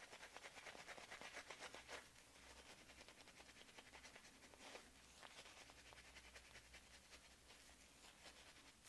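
Straight razor scraping through lathered beard stubble in short strokes: a faint, fine crackle, loudest in the first two seconds.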